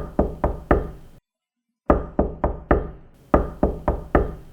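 Knocking in quick runs of four, each run repeated after a brief cut to dead silence, with a faint hiss of background noise behind the knocks. It is a demo sound carrying steady background noise, used to show noise reduction.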